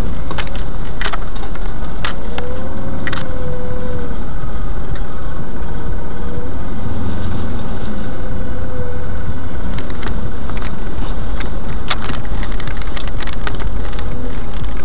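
Car running: a steady, loud low rumble with scattered sharp clicks and a faint wavering whine now and then.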